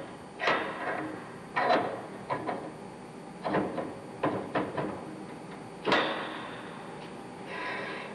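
Steel starting-air valve spindle being ground into its valve housing by hand, turned back and forth with a pin spanner: a series of irregular scraping strokes, becoming a faster, even rasping near the end.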